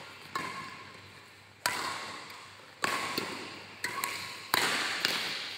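Badminton racket strokes in a doubles rally: about five sharp hits on the shuttlecock, roughly a second apart, each trailing off in a short echo.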